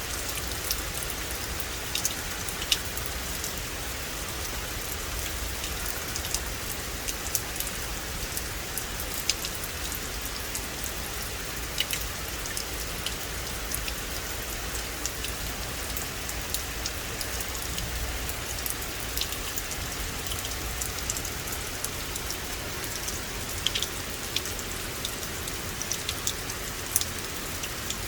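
Steady rain falling on a forest: an even hiss, with many sharp ticks of single drops striking leaves and other surfaces scattered throughout.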